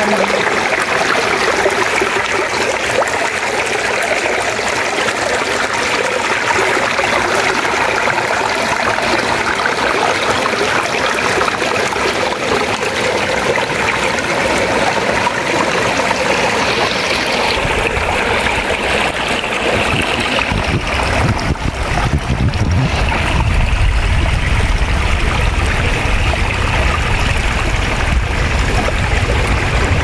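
Shallow mountain stream rushing and splashing over granite rocks, heard close up as a steady rush of water. A little past halfway a deep rumble joins it and stays to the end.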